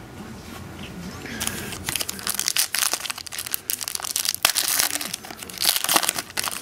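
Foil wrapper of a Contenders football card pack crinkling and tearing as it is handled and opened. It starts about a second and a half in and runs as dense, fast crackling, loudest a little before the end.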